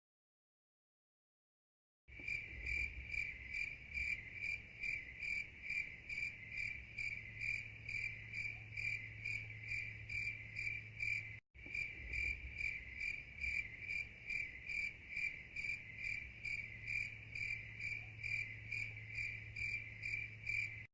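Insect chirping, cricket-like, at an even rate of about two chirps a second over a low steady hum. It starts about two seconds in and cuts out briefly near the middle.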